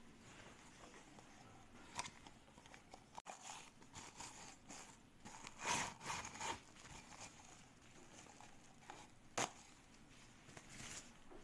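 Faint rustling and crinkling of a thin plastic dog poop bag being pulled out of a plastic bag dispenser, loudest a little past the middle, with a sharp click about two seconds in and another near the end.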